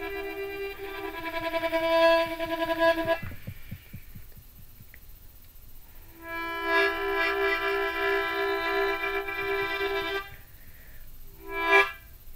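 Harmonica played in long held chords, with a pause of about three seconds between the first chord and the second, then a couple of short notes near the end.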